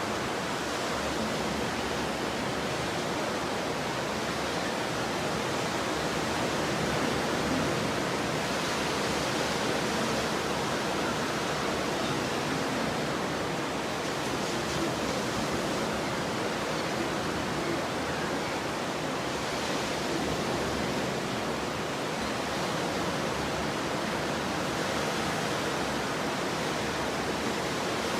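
Stormy ocean surf: a continuous, even wash of breaking waves that swells slightly now and then.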